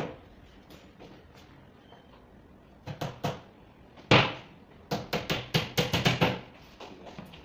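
Wooden knocks on particleboard cabinet panels being fitted together: two light knocks, then a louder knock, then a quick run of about eight sharp taps.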